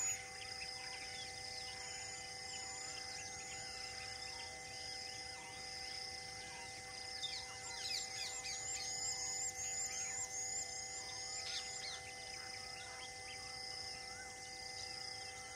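Wild birds chirping in quick repeated calls, busiest around the middle, over a steady insect drone with a high buzz that pulses about once a second.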